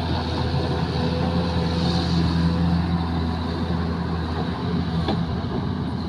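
Diesel engine of a Zoomlion ZE215E crawler excavator running steadily while the machine swings and moves its boom and bucket.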